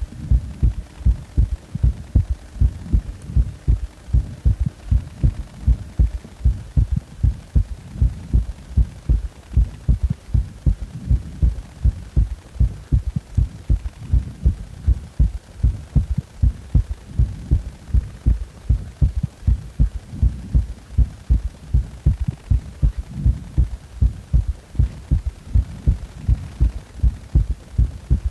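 A human heartbeat recorded close at the chest: a quick, even rhythm of low thuds, each beat carrying three sounds (a third heart sound).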